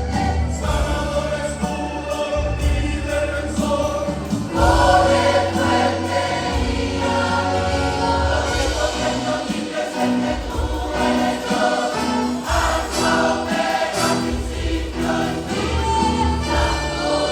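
Choir singing a Christian worship song, with instrumental accompaniment and a bass line underneath.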